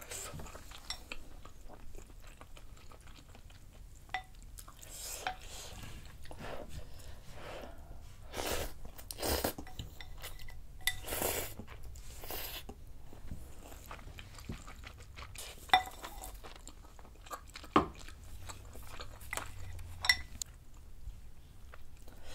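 Close-miked eating of noodle soup: chewing, then a run of loud slurps as noodles are sucked up from the broth around the middle. Near the end come a few sharp clicks of wooden chopsticks and a wooden spoon against the stone bowl.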